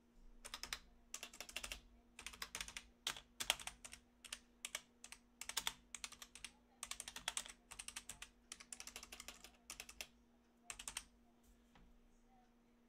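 Typing on a computer keyboard in quick bursts of key clicks, stopping about eleven seconds in.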